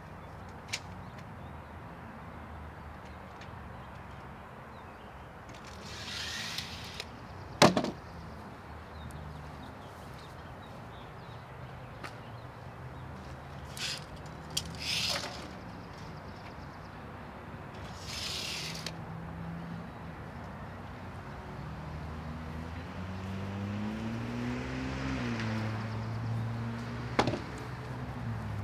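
Steel tape measure being pulled out and retracting several times, with a sharp snap as the blade slams home about eight seconds in. A low engine hum runs underneath and swells, rising then falling in pitch, near the end.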